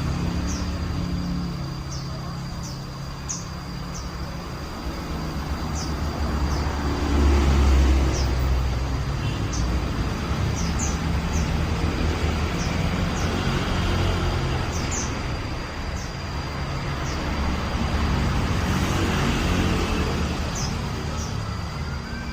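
A white-eye (pleci) giving short, sharp high chirps at irregular intervals, over a steady low rumble of road traffic.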